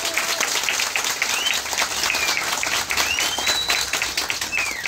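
Crowd applauding, a steady dense clapping, with a few short high-pitched calls over it.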